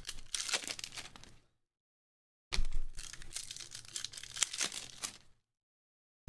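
Foil wrappers of Panini basketball card packs being torn open and crinkled by hand: a short bout of crackling, a pause of about a second, then a longer bout.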